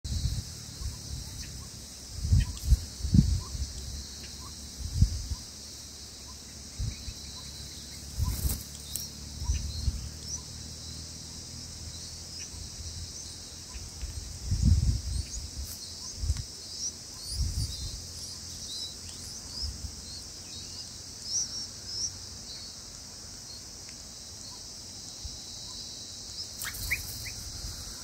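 Insects buzzing in a steady high drone, with many short high bird chirps scattered over it that come thickest around the middle. Irregular low rumbles and thumps, the loudest sounds, come and go several times.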